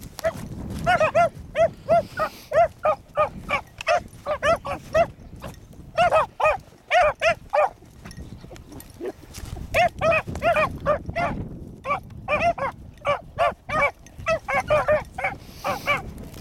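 Two young beagle pups baying on a rabbit's trail, a quick string of short, ringing barks at about three a second, broken by brief pauses. Wind rumbles on the microphone underneath.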